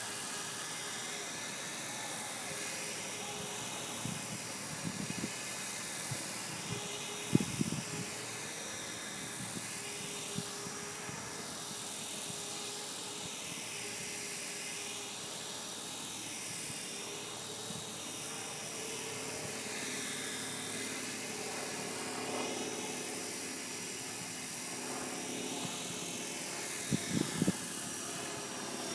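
E-flite Blade 450 electric RC helicopter hovering: the brushless motor and rotor head give a steady high whine, with a tone that sweeps up and down every two or three seconds as it drifts. A few brief low thumps come through, the loudest about seven seconds in and a cluster near the end.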